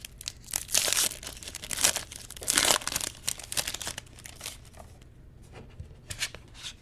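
Wrapper of a football trading-card pack being torn open and crinkled, with a run of sharp tearing and crackling bursts over the first three seconds, then fainter rustling.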